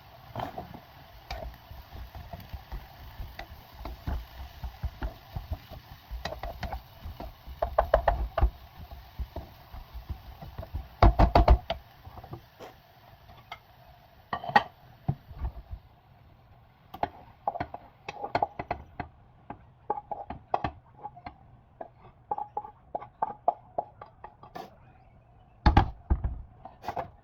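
A cooking utensil clicking and knocking against a pan while an egg stir fry is cooked, with a few louder knocks among many light ones.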